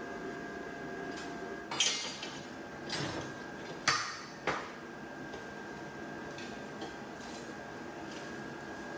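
Four sharp metal clanks and clinks in the first half, as of steel pieces being handled and set down, over a faint steady whine.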